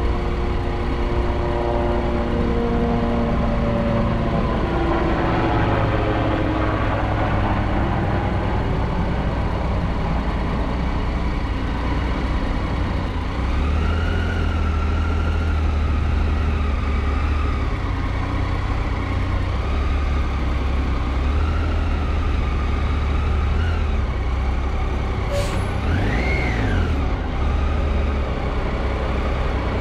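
Triumph Tiger 800's three-cylinder engine at low speed in slow traffic, its pitch wavering up and down with the throttle over the noise of the surrounding vehicles. A quick rise and fall in engine pitch comes near the end.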